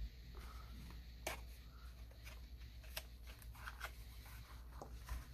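Faint handling of a vape cartridge and its small plastic-and-cardboard package: scattered clicks, taps and rustles, with two sharper clicks about a second in and about three seconds in.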